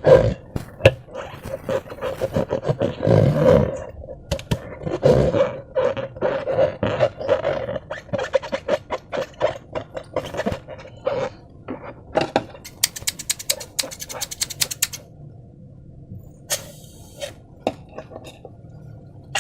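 Slime being squished and worked by hand: a dense run of sticky crackles, clicks and pops, with a fast, even rattle of sharp clicks about thirteen seconds in.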